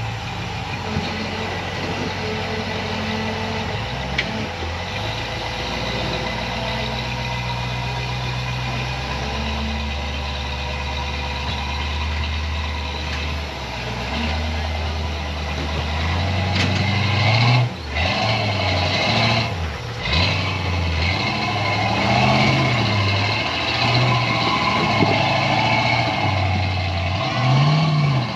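Off-road vehicle's engine running steadily at first, then revved up and down in short repeated blips through the second half, as when working a rig over a trail obstacle.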